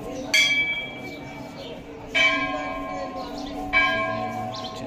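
A Hindu temple bell struck three times, at uneven intervals about a second and a half to two seconds apart, each strike ringing on and fading.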